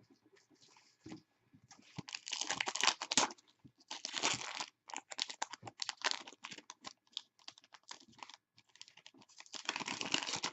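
Hockey card packs being handled: a foil pack wrapper crinkling and tearing in several dense stretches, with quick clicks of cards being flicked between them.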